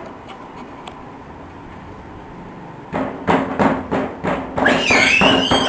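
A run of about six sharp knocks, roughly three a second, starting about halfway through, followed near the end by music with gliding tones.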